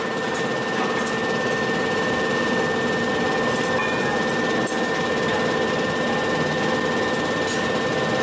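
Steady hum of heavy forging-hammer machinery running between strokes, with a few faint clicks and no hammer blows.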